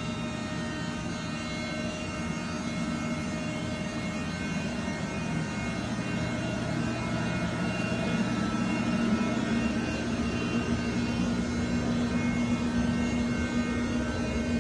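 Steady machine hum and whir with several held tones from a powered-up 2021 Haas ST10Y CNC lathe standing idle, not cutting. It grows somewhat louder about halfway through.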